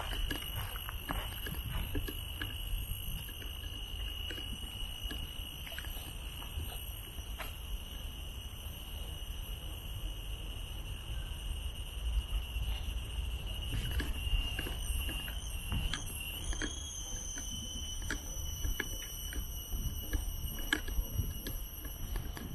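Footsteps on a trail, heard as soft irregular steps, under a steady high-pitched drone made of several held tones that wavers briefly about two-thirds of the way through.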